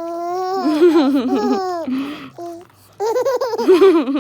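Seven-month-old baby laughing in two bouts of high, choppy giggles, the second starting about three seconds in.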